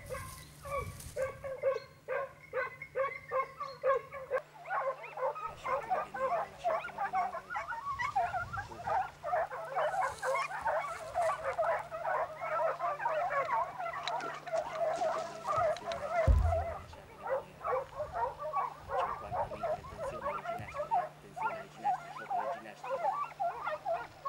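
Pack of hunting dogs giving tongue on a chase of wild boar: one dog barks in a steady rhythm at first, then from about four seconds in many dogs yelp over each other without a break. A single low thud comes about two-thirds of the way through.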